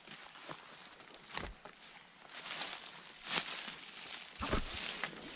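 Footsteps crunching through dry leaf litter and twigs, at an uneven pace, with a few steps louder than the rest.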